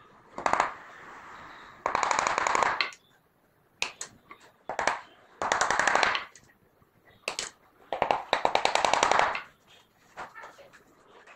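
A power screwdriver driving screws into a wooden frame, in three bursts of rapid rattling clicks about a second long each, with single knocks of wood in between.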